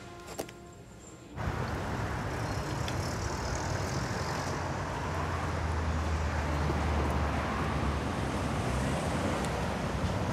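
Steady street traffic noise, a low rumble of passing cars, cutting in suddenly about a second and a half in after a short near-quiet stretch.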